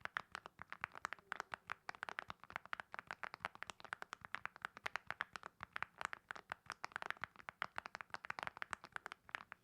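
Fast, continuous typing on a mechanical keyboard fitted with ceramic keycaps: a steady stream of sharp key clicks, many strokes a second.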